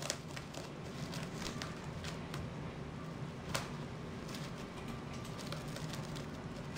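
Rabbit gnawing and tugging at a woven seagrass hay toy: irregular dry crackling and snapping of the grass, with one louder snap about three and a half seconds in.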